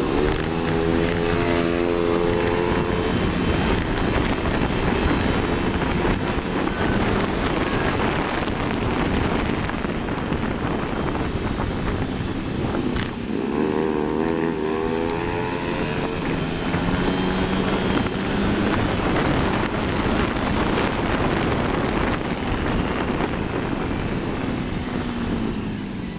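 Motorcycle engine running under way, with wind rushing over the microphone; the engine note climbs as it accelerates near the start and again about halfway.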